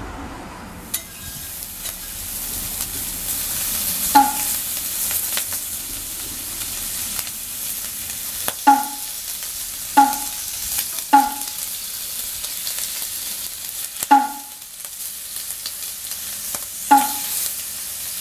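Bacon sizzling on a hot seasoned steel griddle, the sizzle starting about a second in and growing steadily. Six short, ringing pings break through it at intervals and are the loudest sounds.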